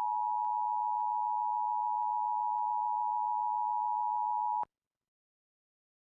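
Emergency Alert System attention signal: a steady two-note electronic tone that cuts off suddenly about four and a half seconds in.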